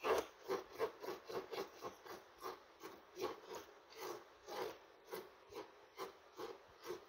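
Macaw's beak scraping and chewing at a sneaker, a steady run of short rasping strokes about three a second.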